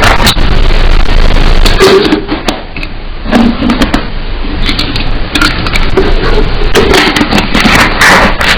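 Close-miked eating noises: chewing and crunching with many sharp clicks.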